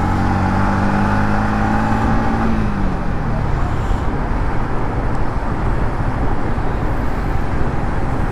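Yamaha MT-15's single-cylinder engine on its stock exhaust, heard from the rider's seat while riding. It gives a steady note that falls in pitch and fades about two and a half seconds in as the throttle is eased, after which mostly wind and road noise is heard.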